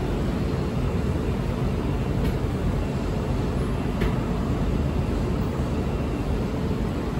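Steady running noise of a Guangzhou Metro Line 22 train at speed, an even low rumble and rush as heard inside the car, with a faint tick about two seconds in and another about four seconds in.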